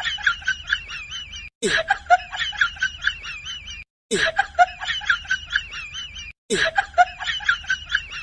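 A cartoon-style snickering laugh sound effect, looped: the same short clip of rapid, high giggles repeats about every two and a half seconds, with a brief dead gap between repeats.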